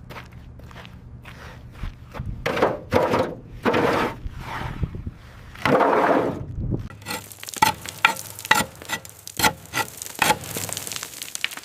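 Workshop handling noise: a few drawn-out scrapes and rubs over a low steady hum, then from about seven seconds in a run of quick sharp knocks and clinks, like parts and tools being handled.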